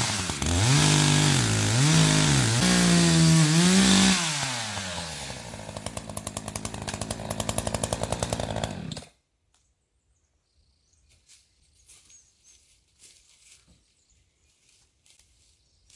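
Chainsaw engine revved up and down several times, then dropping back to a pulsing idle before it cuts off suddenly about nine seconds in. After that only faint rustling and light clicks.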